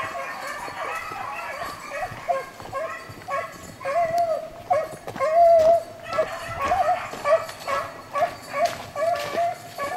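Beagles baying on a rabbit's trail: a steady run of short yelps and drawn-out bawls from more than one hound, with one long held bawl about halfway through.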